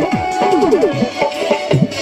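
Loud dance music with drums. It has repeated downward-sliding drum notes, including a quick run of them about half a second in, over steady held tones.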